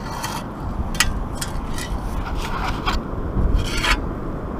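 Beach sand scoop digging a target out of wet sand, a series of short gritty scrapes and rasps, about six strokes, over a low steady wind rumble.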